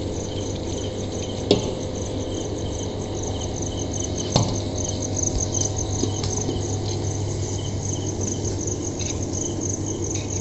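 Crickets chirping in a steady, evenly pulsing rhythm over a low steady hum, with two sharp metal knocks, about a second and a half in and again past four seconds, from the steel bowl and pot as cooked rice is tipped in.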